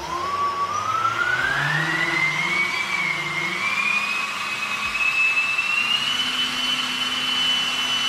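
3D-printed 100 mm dual-propeller electric ducted fan, driven by two DYS 3530 1700 KV brushless motors with both propellers turning the same direction, spooling up under throttle. Its whine climbs steadily for about six seconds and then holds at full throttle. The fan is noisy for the thrust it gives, which the builder puts down to turbulent flow from the same-direction propellers.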